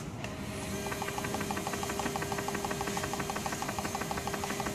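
Prismaflex CRRT machine's roller pumps running as the machine automatically loads the tubing set into its pumps: a steady motor whine with rapid, even ticking, starting about half a second in.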